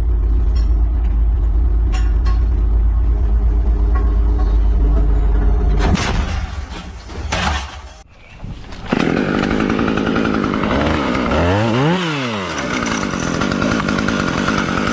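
A motor running loudly: steady at first, then breaking off, then returning harsher, with its pitch dropping and rising again once.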